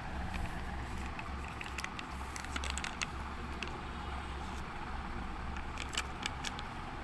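Plastic Kinder Creamy packs crinkling and clicking in scattered short ticks as a hand moves them, over a steady low hum.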